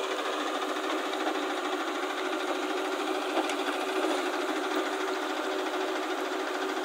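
Tata tipper truck's diesel engine running steadily with a fast rattle, driving the hydraulic hoist as the dump body tilts up to tip out its load of earth. One short click about halfway through.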